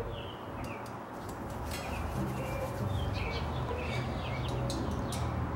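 Small birds chirping, many short repeated calls, over a low steady rumble.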